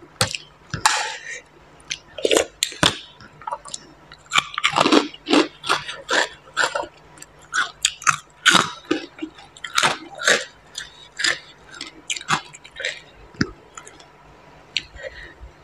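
Close-miked eating sounds: chewing and crunching mouthfuls of green papaya salad and crisp pork cracklings, in irregular crunches.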